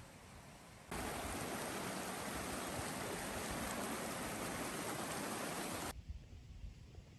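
Steady rush of running water from a stream. It cuts in sharply about a second in and cuts off just as sharply about five seconds later.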